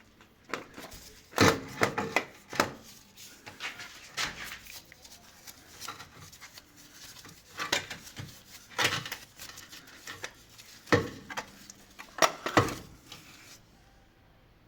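Irregular metallic clinks and knocks of tools and parts being handled during a car starter repair, with the loudest clanks about a second and a half in and again near the end.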